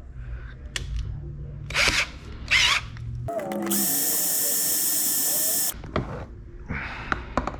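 Power drill with a titanium bit drilling out a pop rivet in a battery box's charger-port plate. It winds up a little over three seconds in, runs steadily for about two seconds, and stops abruptly. A few sharp clicks and handling knocks come before and after.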